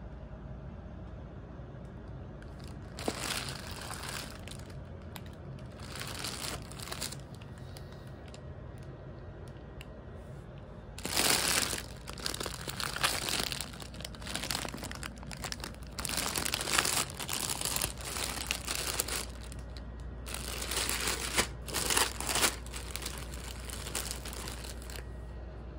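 Clear plastic clothing packets crinkling and rustling as they are handled and shifted, in irregular bursts: a few brief ones at first, then busier crinkling through the second half.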